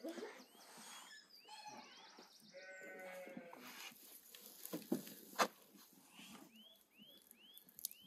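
A livestock bleat, one wavering call about three seconds in, with runs of short high chirps before and after it. A couple of sharp knocks come about five seconds in.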